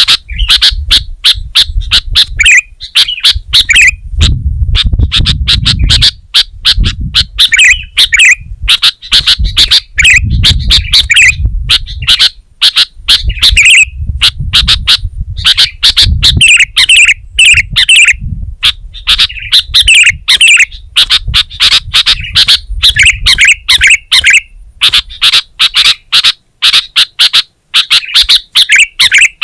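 Sooty-headed bulbul singing continuously, a rapid run of sharp chirping notes with brief pauses between phrases. A low rumble comes and goes underneath.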